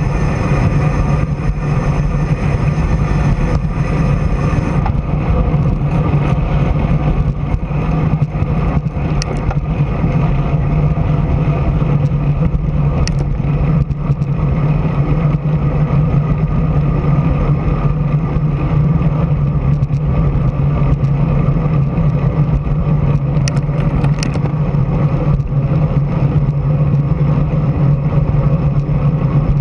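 A motor vehicle's engine running steadily at cruising speed, with wind noise on the microphone.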